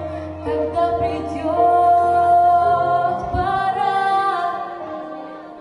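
A young girl sings long held notes over a backing track. The accompaniment drops away about three seconds in, and the voice fades after it.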